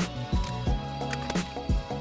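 Background music with a steady beat: electronic track with kick drum and snare-like hits.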